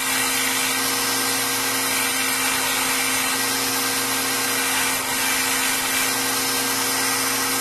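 Belt grinder running with a steady motor hum and belt hiss, as a steel tomahawk head is pressed against the belt to grind and finish it, throwing sparks.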